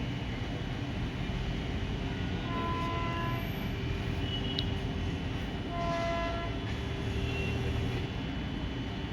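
Indian Railways locomotive horn sounding two short blasts, about three seconds apart, over a steady rumble.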